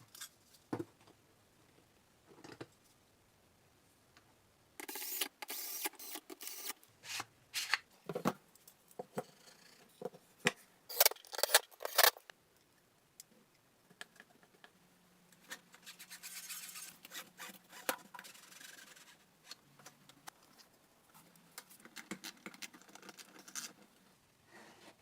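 Hand work with tools and material: bursts of scraping and rubbing, with sharp clicks and knocks between them and a faint low hum partway through.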